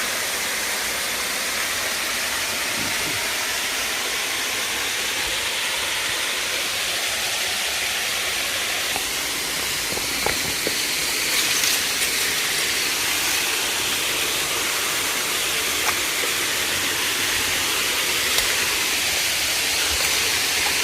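Waterfall rushing: a steady hiss of falling water, with a few faint clicks over it.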